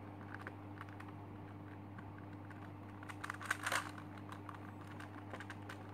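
Plastic Super Square One twisty puzzle clicking and clacking as its layers are turned by hand, with a quicker, louder run of clicks about three and a half seconds in. A steady low hum runs underneath.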